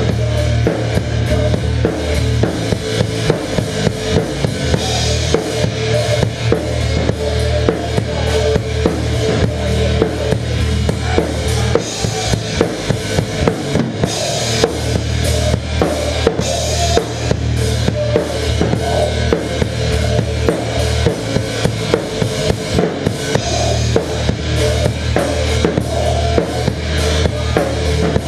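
Drum kit played hard and heard close up during a live band set: a steady beat of kick drum, snare and cymbals over held low notes.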